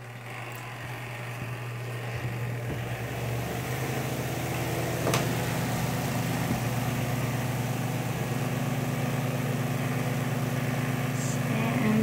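Costway twin-tub washer's spin-dryer motor spinning its basket back up after the lid is closed: a steady hum that grows louder over the first few seconds and then holds, with spun-out water rushing from the drain hose. A single click about five seconds in.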